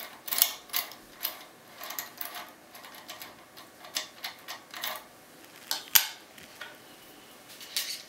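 Key being worked in a brass Abus euro-profile lock cylinder: a string of irregular, sharp metallic clicks as the key moves against the pin tumblers and the cylinder, with a loud single click about six seconds in and a short cluster of clicks near the end.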